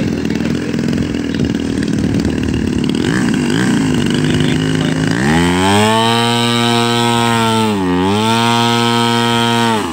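Giant-scale RC Jenny biplane's engine running unevenly at idle, then throttled up about five seconds in to a high, steady run-up while the plane is held in place, with one brief dip in revs, before cutting off abruptly near the end.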